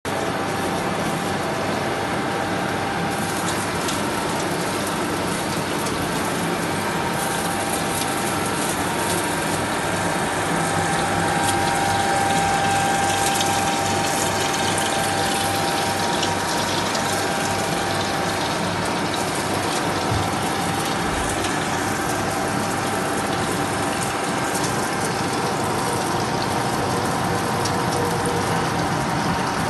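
Vertical milling machine drilling holes in the steel flange of a gearbox housing, coolant spraying onto the cut: a steady machining noise with a faint constant whine.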